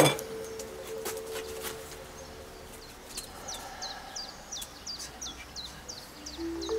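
A small bird singing a quick series of short, high, downward-sweeping chirps, about four a second, starting about three seconds in. Before it a single low tone is held, and near the end a rising run of chime-like notes begins.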